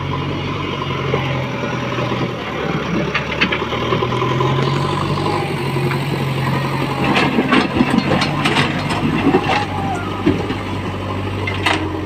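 JCB backhoe loader's diesel engine running steadily as its front loader bucket pushes through stone rubble, with stones clattering and knocking, most of them from about seven to nine and a half seconds in.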